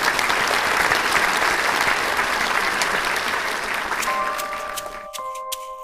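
Applause, gradually fading. About four seconds in, music begins with a held chord of steady tones and sharp percussive ticks.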